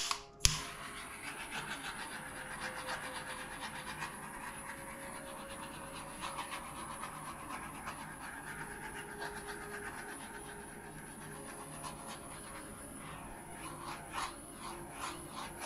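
Handheld butane heat torch clicking alight about half a second in, then burning steadily as it is played over wet poured acrylic paint to bring up cells, with a few louder flutters near the end.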